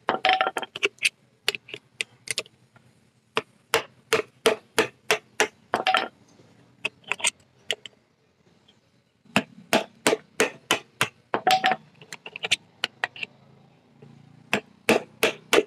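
Hammer blows on a used tractor hydraulic oil filter, punching holes through it. The sharp strikes come in runs of quick blows, with a short pause about halfway.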